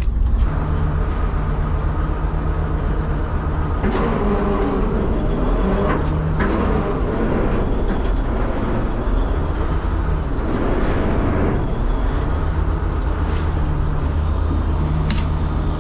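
Fishing boat's engine running steadily with a low hum, with a few short knocks.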